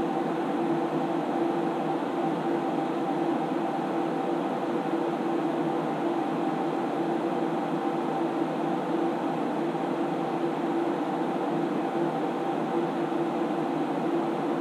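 SGI Onyx2 graphics computer's cooling fans running: a steady hum with several constant tones.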